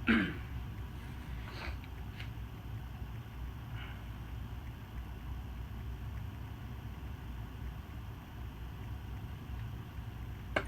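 Fasco Heat Cycler ceiling fan running with a steady low hum from its large stack motor, with a short sharp sound at the very start and a few faint clicks.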